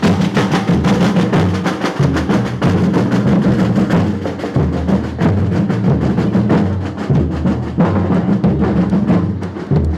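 Music with drums and other percussion: a rapid run of struck beats over sustained low notes.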